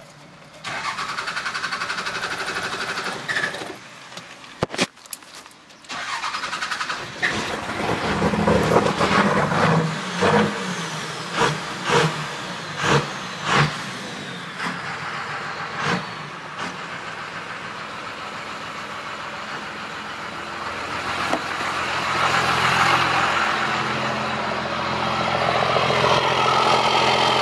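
Cummins 12-valve 5.9-litre inline-six diesel being cranked over by its starter in two tries, then firing unevenly with a string of loud pulses about once a second before it catches and runs, speeding up near the end. It is a hard start after the engine ran dry of fuel.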